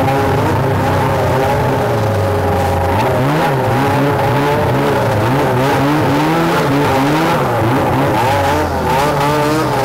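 Two-stroke snowmobile engine running at a steady idle, then revved up and down again and again for about five seconds before settling back to idle near the end.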